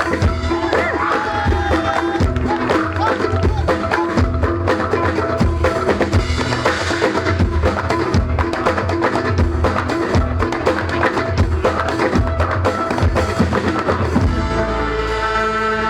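Zapin music played by an ensemble: fast, busy drum and percussion strokes over melodic instruments. About a second and a half before the end the drumming stops and held, sustained notes take over.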